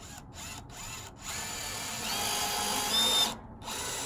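Craftsman V20 cordless drill driving a 2-inch screw into soft wood on its lowest clutch and speed settings, so it turns slow and smooth. It gives a few short trigger pulses, then a steady run whose whine rises in pitch, stops briefly, and starts again near the end.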